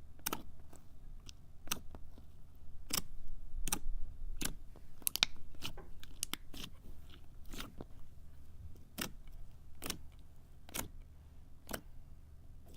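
Thick slime being pressed and poked by hand, making a string of sharp pops and clicks about once a second, with a quick cluster of them midway.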